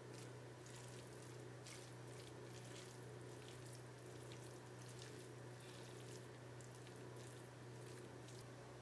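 Forks shredding moist cooked pulled pork in a ceramic dish: faint, irregular wet tearing and squishing with light clicks, several a second, over a low steady hum.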